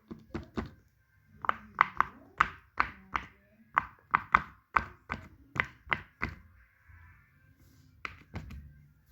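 Plastic fidget toys being clicked and tapped: a quick, irregular run of about twenty sharp knocks and clicks, some with a short ring, with a brief pause a little past the middle.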